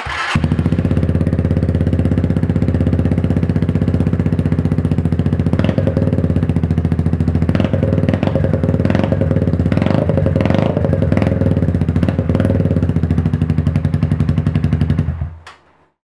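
125cc motorbike engine running through a Lextek XP8C carbon exhaust with its baffle removed. It sounds loud and steady, with a run of sharp pops through the middle stretch, and it fades out near the end.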